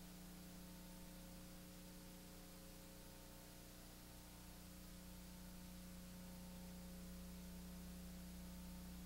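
Near silence: a steady low electrical hum over faint hiss.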